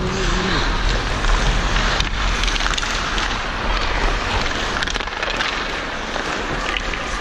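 Ice hockey skates scraping and carving on the ice, with wind rushing over the microphone as the skater moves. A few sharp clacks cut through, the clearest about two seconds in and near five seconds.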